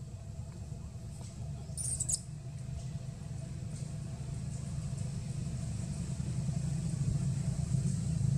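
Low, steady rumble of a motor vehicle's engine running, growing slowly louder toward the end, with a brief high crackle about two seconds in.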